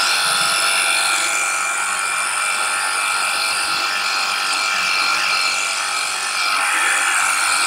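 Cordless battery pressure washer (Xenon HPW2160, 21V) running steadily, its motor and pump whining while it sprays soap foam through a foam-cannon bottle, with the hiss of the spray.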